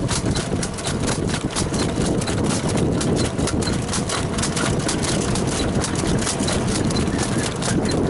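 Rapid, steady hoofbeats of a standardbred trotter in harness, several strikes a second, over a continuous low rumble.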